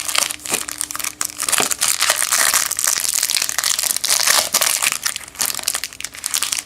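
Trading-card pack wrapper crinkling and crackling as it is handled and crushed in the hands.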